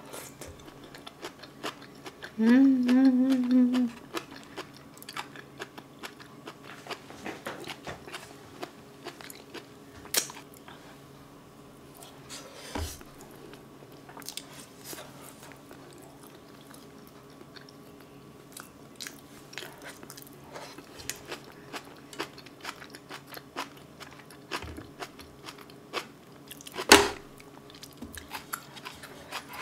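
Close-miked chewing and lip-smacking of braised kimchi eaten by hand: many small wet clicks, with a short wavering hummed "mmm" about two and a half seconds in and one sharp loud click near the end.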